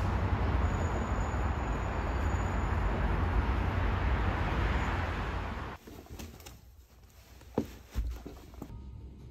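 Steady city traffic noise, strongest in the low end, that cuts off suddenly about six seconds in. Then a quieter room with two soft thuds of shoes stepping on a wooden floor.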